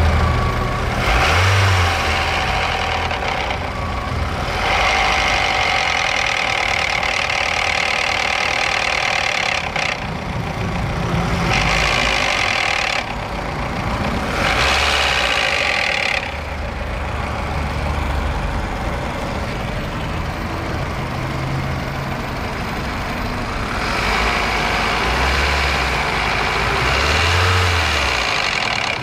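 Car running, its engine note rising and falling several times, with the knock (стук) the recording was made to capture.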